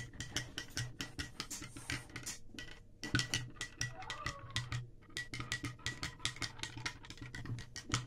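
A spoon stirring honey into lemon water in a drinking glass, clinking against the glass several times a second, with two brief pauses about two and a half and five seconds in.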